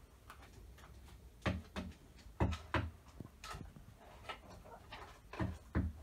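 A series of short knocks or taps, several coming in quick pairs.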